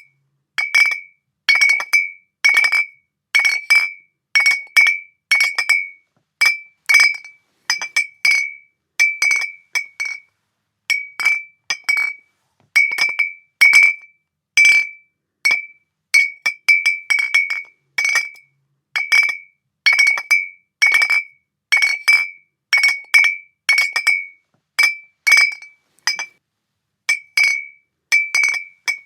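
Glass bottles clinking against each other over and over: short, bright chinks, each ringing briefly on a clear high tone, coming irregularly about one to two a second, some in quick pairs.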